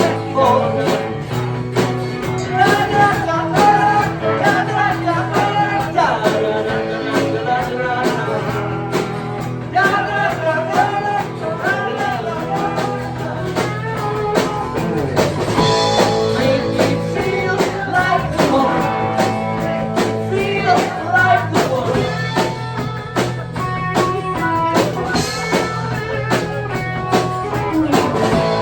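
A blues-rock song being played by a band: guitar over bass and drums, with a steady beat.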